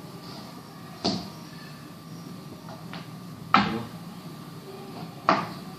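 Three sharp knocks, each dying away quickly: about a second in, again about a second and a half later (the loudest), and once more near the end. Under them runs a steady low hum.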